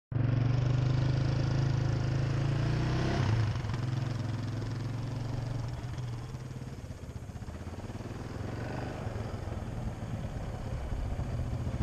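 Yamaha Raptor 700R ATV's single-cylinder engine running out of sight. It is steady and loud at first, drops back about three seconds in and fades to its quietest about seven seconds in, then grows louder again toward the end as the quad comes back.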